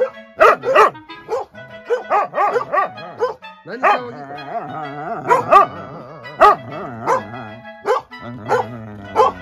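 A dog barking in short, repeated barks, about two a second, scolding another dog.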